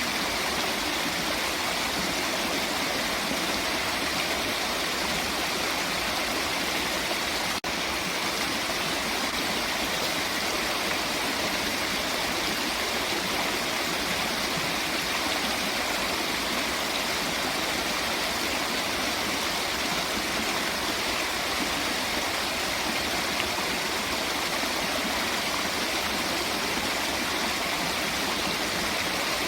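Waterfall, its water rushing in a steady, unbroken roar of falling water. A momentary dropout breaks it about seven and a half seconds in.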